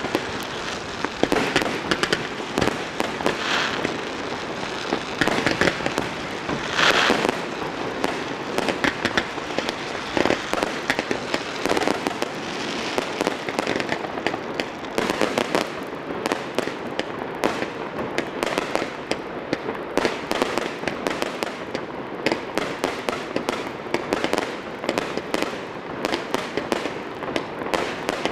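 Aerial fireworks display: a continuous barrage of rapid pops and crackling as comets and shells burst overhead, with louder bursts scattered through it.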